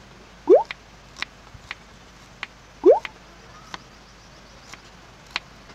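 Water drops falling: two loud plops into standing water that rise quickly in pitch, and about six sharper drip ticks between them, over a steady hiss.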